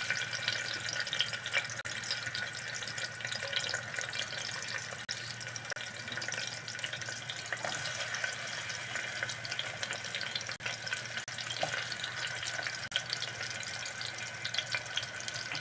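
Sliced onions sizzling in hot oil in a pressure cooker: a steady hiss with fine crackling throughout.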